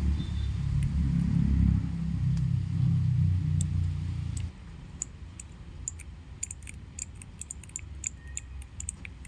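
A low rumble for about the first four and a half seconds, then quick, irregular clicking from the mechanical key switches of a small four-key keyboard keychain being pressed.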